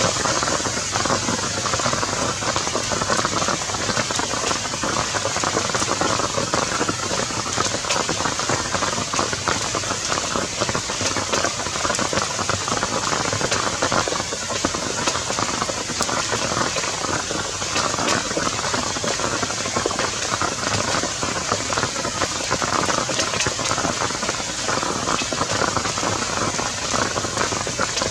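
Rain falling steadily: a continuous even hiss of drops, flecked with tiny patters.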